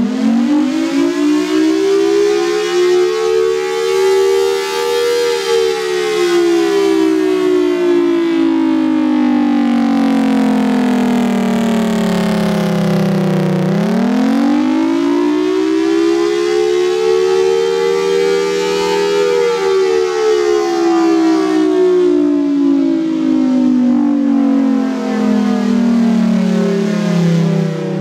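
Federal Signal Thunderbolt 1003 outdoor warning siren sounding a slow wail, the Attack signal. Its pitch rises for about five seconds and falls for about eight, twice over.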